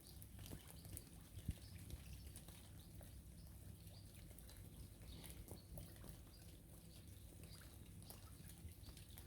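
Light rain on a river: faint, scattered drips and small splashes over a low steady hiss.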